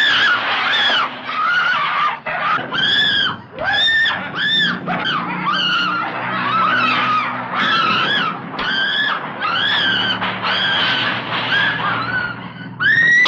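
Repeated shrill, high-pitched shrieks, about one a second, each rising and then falling in pitch.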